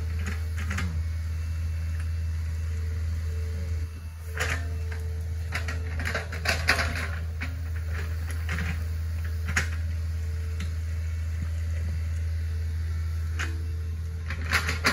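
Hitachi ZX48U mini excavator's diesel engine running steadily with a low drone and a faint steady whine, while the bucket digs mud out of a ditch, giving several scattered knocks and scrapes, the loudest about six to seven seconds in.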